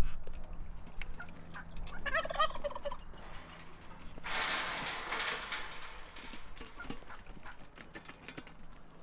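A turkey gobbling once, a rapid warbling call of about a second, about two seconds in. About two seconds later there is a second-long rush of noise.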